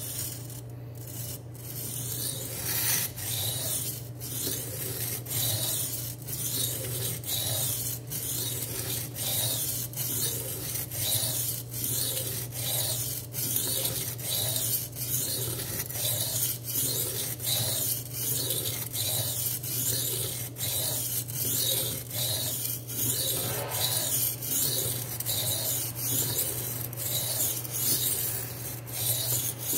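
A D2 steel knife blade, held at a fixed angle by a clamp-on guide, being stroked back and forth across a sharpening stone in a steady, even rhythm of grinding strokes, raising a burr along the edge.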